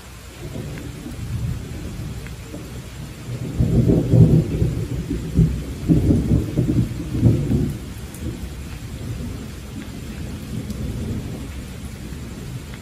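Rolling thunder over steady rain. The rumble sets in about half a second in, is loudest from about three to seven seconds in, and then dies down to a low grumble under the rain's hiss.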